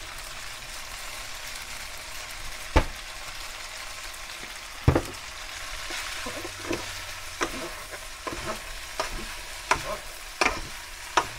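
Spaghetti sizzling in butter in a frying pan, with sharp knocks of two wooden spatulas against the pan as the noodles are tossed. The knocks are sparse at first, then come every half second or so in the second half.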